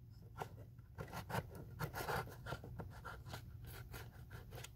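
Snap-off utility knife blade cutting through packing tape along a cardboard box's seam: a faint, irregular series of short scratchy strokes.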